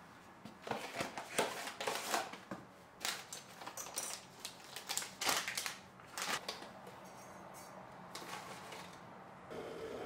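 Cardboard tea box and metal spoon handled on a kitchen counter: a run of quick, sharp rustles and taps for about six seconds, then fainter handling.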